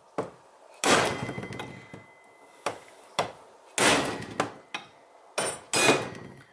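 A small hammer strikes a steel punch about nine times, unevenly spaced, driving a stubborn old rear main seal out of an aluminum rear main seal housing. The heavier blows ring on briefly.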